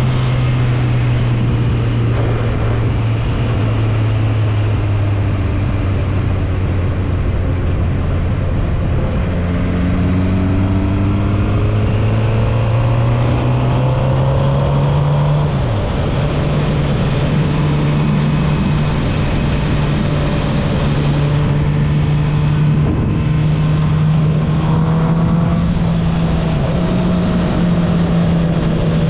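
Suzuki GSX-R750 inline-four engine heard while riding. Its note climbs steadily for several seconds, breaks off sharply about halfway through, then holds a steady pitch, edging up near the end.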